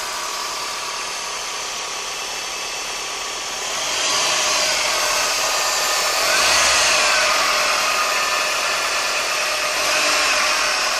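Toyota Corona Exiv car engine running, revved up briefly three times, about four seconds in, at six and a half seconds and at ten seconds, then settling back. The owner says the engine is knocking.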